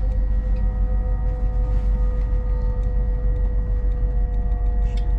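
Interior running noise of an LNER Class 801 Azuma electric train at speed: a steady low rumble with a steady whine of several tones over it.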